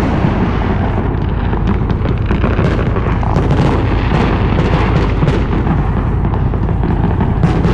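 Fireworks going off in a continuous barrage: overlapping booms and rapid crackling bangs with no pause between them.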